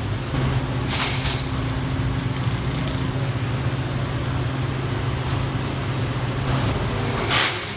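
Steady low hum of workshop machinery, with a short clank about a second in and a louder clatter of small metal parts near the end, as a bucketful of parts is tipped into a tumbling drum.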